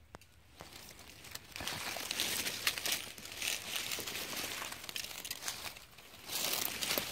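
Dry fallen leaves rustling and crunching underfoot as someone steps through leaf litter, a run of crackles starting about a second and a half in and louder near the end.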